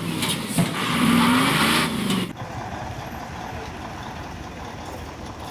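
Loud hiss from a heavy cargo truck's rear dual wheels, where white smoke is pouring out, cutting off sharply after about two seconds. A steady low rumble follows.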